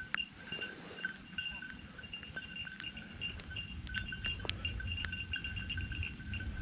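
A hunting dog's bell ringing in short, irregular jingles as the dog moves through the brush.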